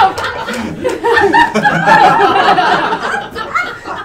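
A group of adults laughing and chuckling together, with some overlapping talk, dying down near the end.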